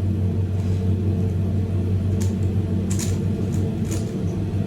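Steady low hum of a Ferris wheel gondola's air conditioner, with a few short, sharp clicks of a Megaminx puzzle being twisted about two to four seconds in.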